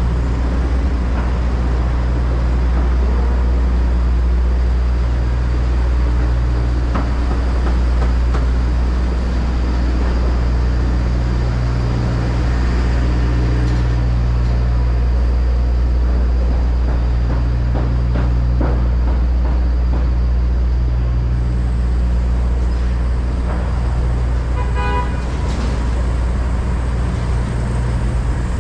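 Busy city street traffic, with a steady low engine rumble from vehicles close by. A car horn sounds briefly near the end.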